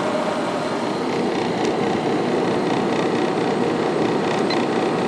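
Sharp window air conditioner running in cooling mode with the compressor on and the fan blower on medium speed: a steady whoosh of air and hum, unchanging throughout.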